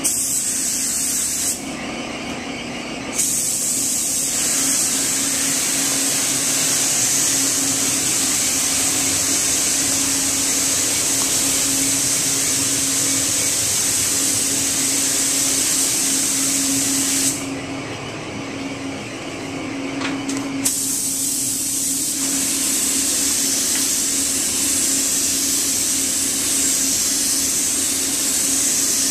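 Gravity-feed paint spray gun hissing steadily as compressed air atomizes paint, with the trigger released twice, briefly near the start and for about three seconds past the middle. A steady low hum runs underneath.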